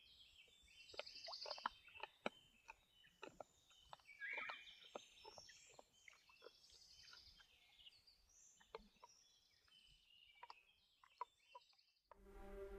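Wild boar cracking and chewing freshwater mussel shells: an irregular run of sharp crunches and cracks, with birds calling. Music comes in near the end.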